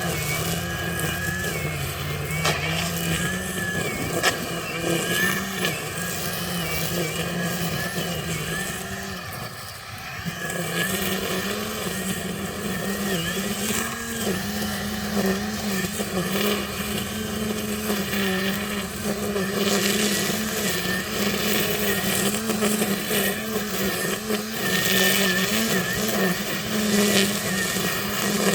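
EGO 56-volt battery-powered multi-tool with its string-trimmer head running under load, a steady electric whine that wavers in pitch as the line cuts through overgrown weeds, with sharp ticks of the line striking stems and debris.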